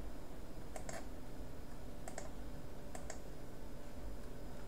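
Three isolated clicks of a computer mouse or keyboard button, each a quick press-and-release, about a second apart.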